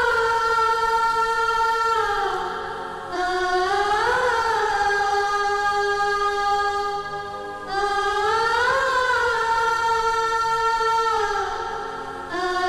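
Film background score: wordless voices hold long notes in phrases about every four and a half seconds. Each phrase opens with a brief rise and fall in pitch, then holds steady and fades.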